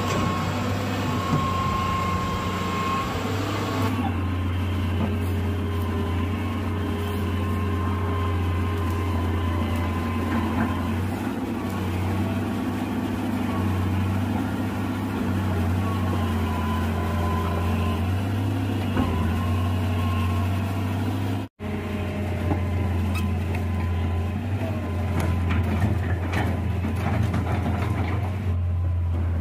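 Hitachi EX200 excavator's diesel engine running steadily while the machine works, its note rising and falling with the hydraulic load as the repaired hydraulic pump is put under test. The sound drops out for an instant about 21 seconds in.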